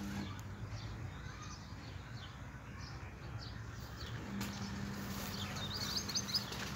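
Birds chirping, with one bird giving a quick run of high repeated notes about six seconds in. A steady low hum drops out right at the start and comes back about four seconds in.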